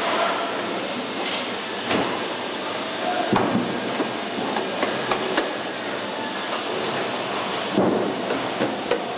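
Truck assembly hall noise: a steady hiss of machinery with scattered metallic knocks and clanks, a cluster about three seconds in and another near the end.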